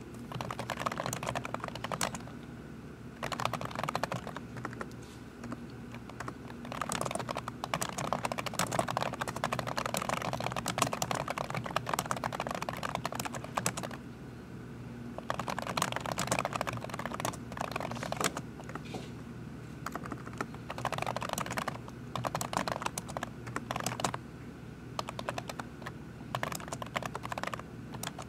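Fast typing on a computer keyboard: dense runs of key clicks lasting a few seconds, broken by short pauses, over a steady low hum.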